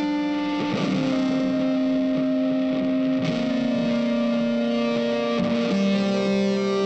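Background music: slow, held chords that change about every two and a half seconds.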